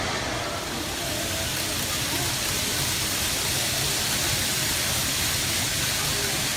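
Steady rushing, hiss-like noise of N-gauge model Shinkansen trains running on a layout, with faint voices in the background.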